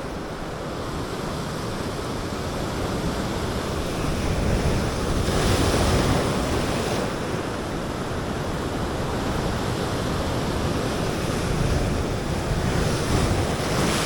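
Rough sea surf washing against shoreline rocks, a steady wash of water. One wave surges in louder about five seconds in.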